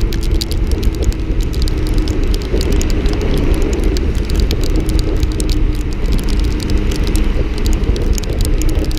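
Loud wind rush on an action camera's microphone from riding a Honda CB Twister 250 motorcycle in the rain, with the single-cylinder engine humming steadily underneath. Raindrops tick irregularly on the camera housing throughout.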